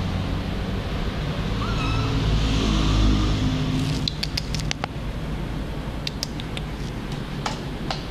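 Light clicks and taps, a quick cluster about four seconds in and a few more near the end, over a low steady rumble: a kitten moving about a computer desk and onto its keyboard.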